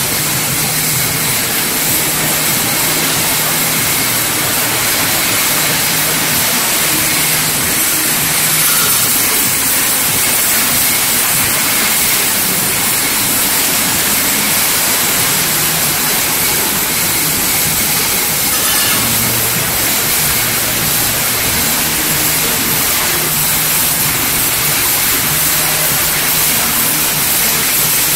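PVC wire coating line running: a steady mechanical hum under a strong, even hiss.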